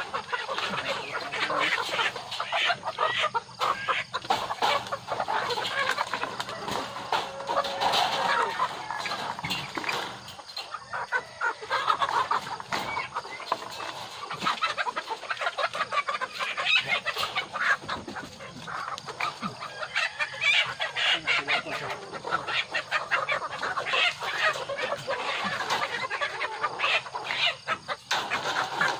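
A flock of ready-to-lay pullets clucking without pause, many birds calling at once, as they are caught and put into wire layer cages.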